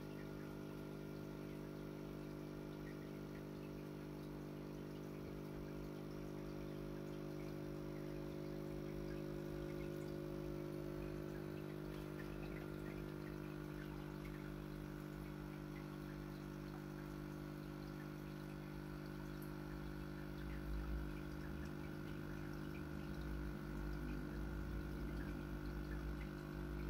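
Aquarium filter running: a steady motor hum with water trickling and splashing back into the tank. Some low rumbling comes in over the last few seconds.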